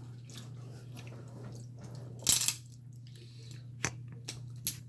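Eating seafood boil: shells cracking and food being chewed, with one loud crunch about two seconds in and three sharp clicks near the end, over a steady low hum.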